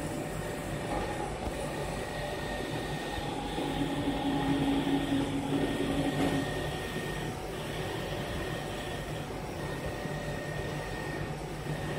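Fabric laser cutting machine running: a steady mechanical hum of its motors and fans. It gets louder, with an added steady tone, from about four to six and a half seconds in.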